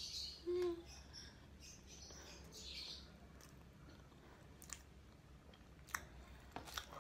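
Faint mouth sounds of biting into and chewing soft cheese cream bread: soft wet smacks at the bite and again a few seconds later, a brief low hum about half a second in, and a few small clicks near the end.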